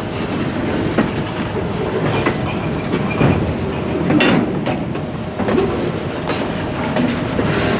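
Slow-moving freight cars, a caboose and gondolas, rolling past: a steady rumble of wheels on rail with irregular clicks and metallic clanks over the joints, the sharpest clank about four seconds in.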